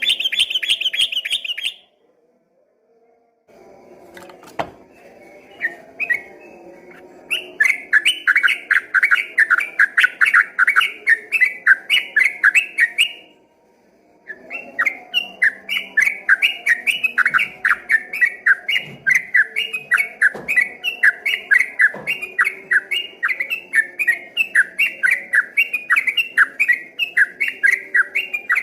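Yellow-vented bulbul (trucukan) singing its fast rolling 'ropel' song: long runs of rapid repeated chirping notes, with a short buzzy trill at the start and brief breaks about two seconds in and about thirteen seconds in.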